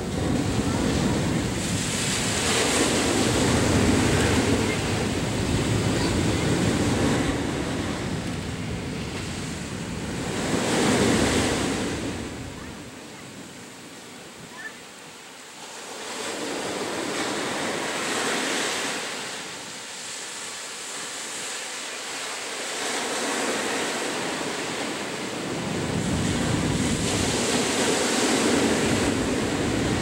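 Ocean waves breaking on a sandy beach and washing up the shore in slow surges that swell and fade. There is a quieter lull about halfway through before the surf builds again near the end.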